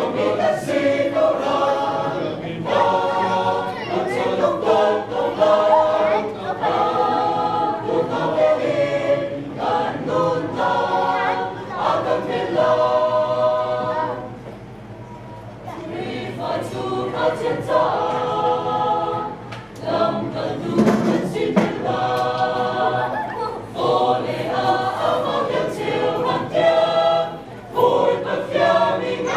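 Mixed choir of men's and women's voices singing a hymn in parts, in phrases, with a short pause between phrases about halfway through.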